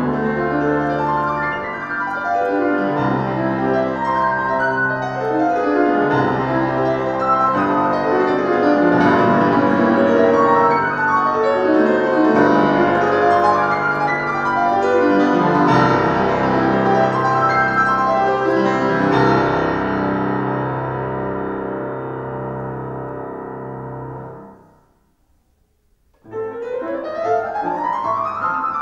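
Solo classical piano on a Schimmel grand: dense chords and runs, fading away about twenty-four seconds in. After a second of silence the playing starts again with fast runs sweeping up and back down.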